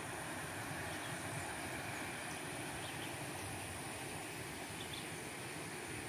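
Steady rushing of a shallow river running over rocks, with a thin high steady whine throughout and a few faint, short high chirps.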